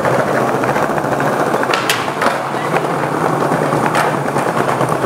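Skateboard wheels rolling over a smooth tiled floor, with several sharp clacks of the board as flatground tricks are popped and landed. The loudest clack is about two seconds in, and another comes near four seconds.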